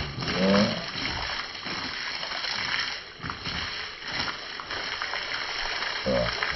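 A strong jet of water from a hose spraying and splashing onto a wet dog and into a plastic basin of soapy water, a steady rushing hiss.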